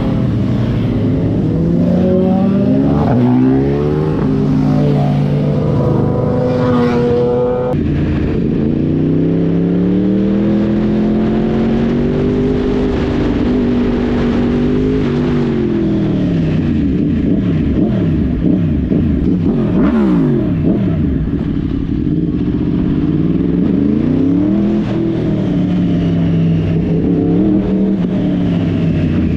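Yamaha sportbike engine heard from the rider's seat, revving up and down as it runs through the gears, its pitch climbing and then dropping sharply at each shift, with wind noise. About halfway through, other engines' rising and falling tones cross over it.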